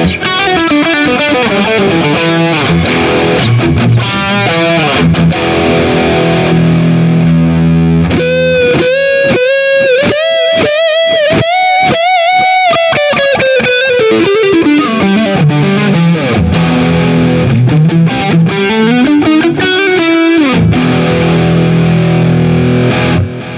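Jet JT-300 Telecaster-style electric guitar with two single-coil pickups, played amplified. Held chords give way to a fast run of picked notes that climbs and falls back, then more chords, stopping abruptly near the end.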